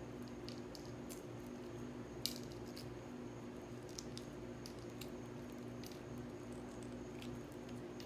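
Flexible silicone molds being flexed and peeled off cured resin pendants: soft rubbery squishing with scattered small clicks, one sharper click a little over two seconds in, over a steady low hum.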